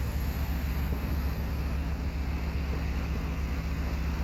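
Steady low outdoor rumble with no firework bangs.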